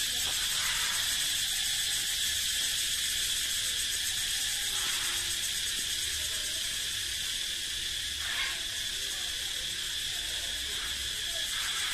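A chorus of cicadas calling from the trees, a steady high-pitched buzzing drone that doesn't let up.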